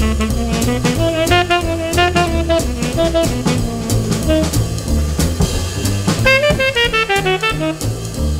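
Background jazz music: a lead melody over bass and drums.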